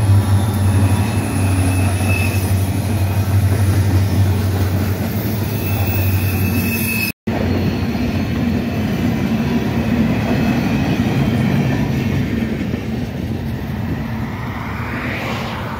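Reading & Northern diesel freight locomotives pass close by, their engines running with a deep steady hum. After a cut, freight cars roll past with a rumble of wheels on rail and some wheel squeal. The rumble fades as the end of the train moves away.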